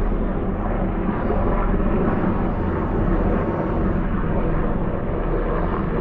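Three military helicopters flying overhead: a steady drone of rotors and engines with a fast, low flutter of the blades.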